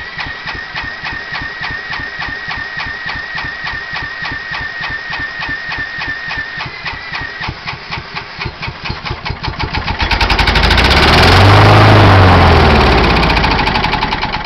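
Kawasaki FC150V single-cylinder mower engine being cranked by an electric drill, an even chugging beat with the drill's steady whine over it, then about ten seconds in it catches and runs loud and fast for a few seconds before fading back down. It will not keep running, which the owner takes for a worn-out carburetor.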